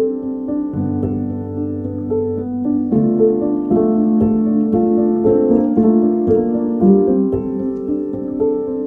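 Background music: a calm piano piece, a melody of single notes over held low bass notes.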